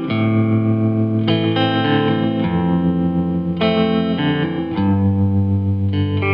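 Background music led by a guitar played through effects, its sustained chords changing about every second.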